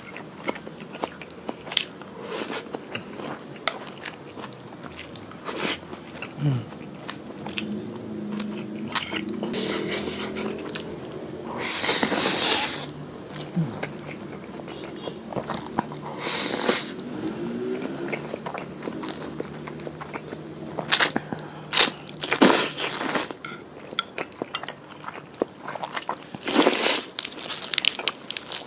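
A man eating close to a lapel microphone, with wet chewing and lip smacks throughout. Several loud slurps of spaghetti noodles come through the middle, and crunching bites of a fresh lettuce leaf come near the end.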